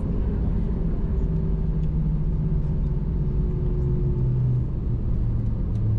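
Cabin rumble of an Airbus A320 rolling out on the runway just after landing, with the engines and wheels running down as the jet slows: a steady roar under a low hum that slowly falls in pitch.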